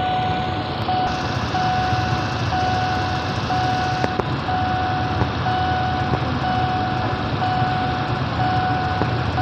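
Railway level-crossing warning alarm: an electronic tone repeating about once a second, each tone lasting most of a second with a short gap, sounding while the barriers are down. A steady engine rumble runs beneath it.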